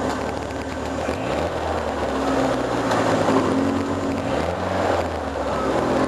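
Lancia Delta's engine heard from inside the car at low speed, its revs rising and falling a few times as it crawls along in slow traffic.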